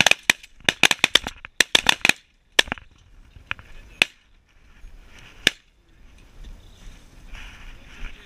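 A rapid volley of shotgun blasts from several hunters firing at once, about a dozen shots overlapping in the first two seconds, then a few scattered follow-up shots, the last about five and a half seconds in.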